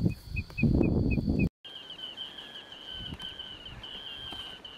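At first, wind buffets the microphone under a bird's short high notes, evenly spaced at about four a second. Then, after a cut, an Ocellated Crake gives a long, rapid series of high-pitched notes with brief breaks.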